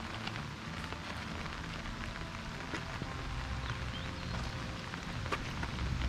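Steady rain falling, with scattered sharp ticks of single drops.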